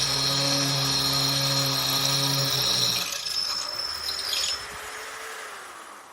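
Small electric polisher/drill motor (JLD 3301, 350 W) running steadily with a low hum and a high whine. It switches off about three seconds in and winds down.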